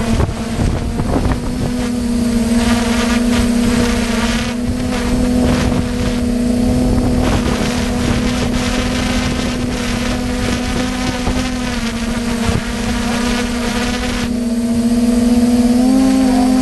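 A motorboat engine running steadily, with wind buffeting the microphone.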